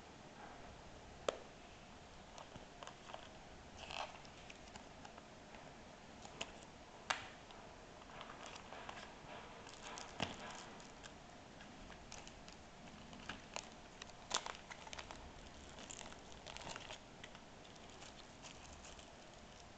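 Hands handling a Ray-Ban sunglasses case and packaging: a few sharp clicks and taps, loudest about a second in, seven seconds in and near fourteen seconds, among soft crinkling of the clear plastic bag wrapped around the sunglasses.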